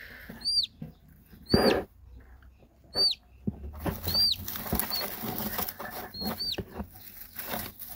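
Domestic chicken chick peeping: a string of short, high peeps, each rising then falling, about one a second. A brief rustle in the straw about a second and a half in.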